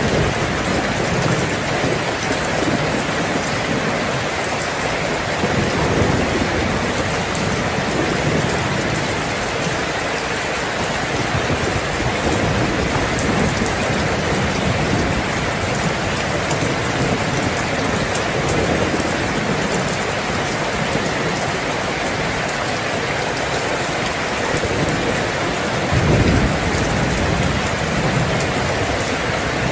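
Steady heavy rain with low rolls of thunder underneath; a louder thunder roll comes near the end.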